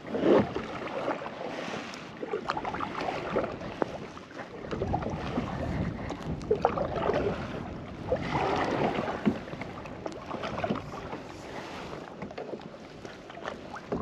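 Kayak paddle strokes splashing through choppy water, swelling every few seconds, with gusty wind buffeting the microphone and a few sharp knocks.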